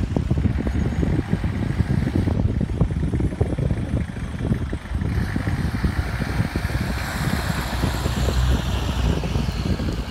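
Wind buffeting the microphone over a small airport baggage tug driving slowly through a cone course. A hiss swells from about five seconds in as the tug comes closest, then eases near the end.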